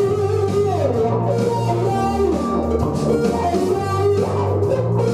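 Gibson Les Paul Classic electric guitar played solo: a lead melody with a slide down in pitch about a second in and a slide up near the end, over held low notes.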